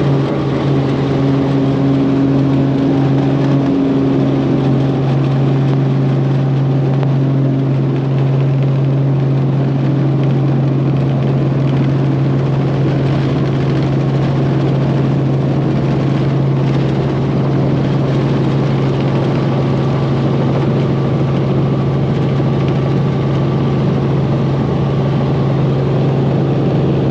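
Sightseeing helicopter's engine and rotors running with a loud, steady drone, one strong low hum standing out over the noise.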